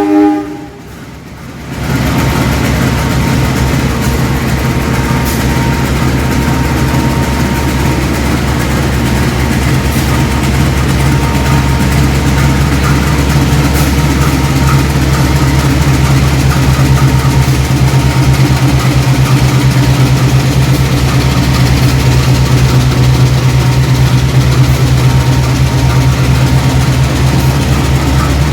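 GE diesel-electric locomotive engine running steadily at low speed, a heavy, even, fast-pulsing diesel note that comes in about two seconds in and holds unchanged.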